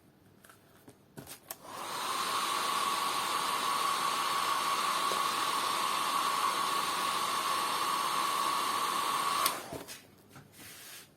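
Handheld electric hot-air blower, of the hair-dryer kind, switched on for about eight seconds with a steady whine and rush of air, then switched off; a few small clicks and handling knocks come before and after it.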